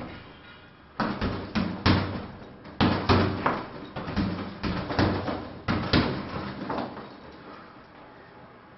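Rapid strikes landing on a hanging punching bag: about twenty dull thuds in quick runs of two to four blows. They start about a second in and stop near seven seconds.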